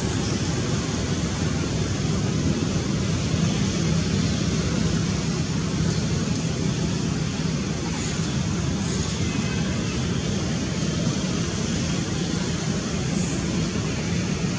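Steady, low rumbling background noise with a faint hum, like wind on the microphone or distant traffic, with a few faint high chirps about 8 and 13 seconds in.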